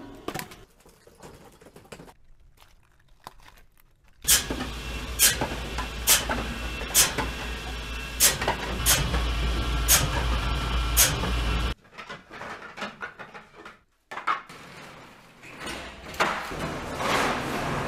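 Bench-mounted circular saw running with a steady hum while cutting a bamboo stalk into sections, with a sharp crack about once a second, nine or so in all. The saw stops suddenly partway through, and lighter knocks and clatter follow.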